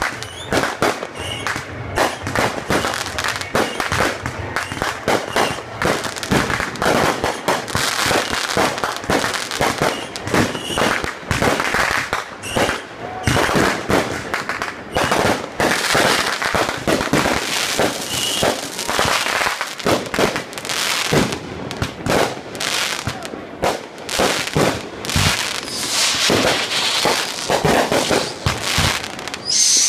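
Fireworks display: a steady barrage of bangs and crackling bursts in quick succession, without a break.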